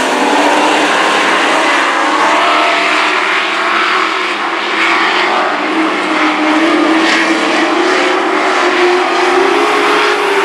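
Several dirt-track race trucks running laps together, their engines overlapping and rising and falling in pitch as they go through the turns and down the straights.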